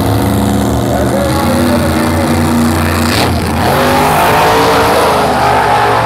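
Two drag-race cars' engines running hard as they make their pass down the strip, with a crowd yelling over them.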